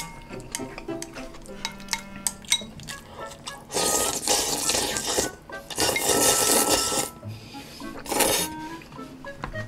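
Wooden chopsticks clicking and clinking against a ceramic bowl, then, about four seconds in, loud slurping of chewy jjolmyeon noodles from the bowl held up to the mouth, in three bursts. Soft background music runs underneath.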